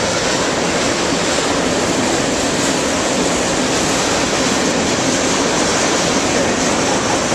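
Oil-train tank cars rolling past on steel wheels: a loud, steady noise of wheels running on the rails.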